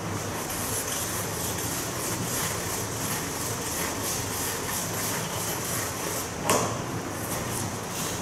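Felt blackboard eraser wiping chalk off a chalkboard in quick back-and-forth strokes, about three a second, followed by one sharp knock about six and a half seconds in.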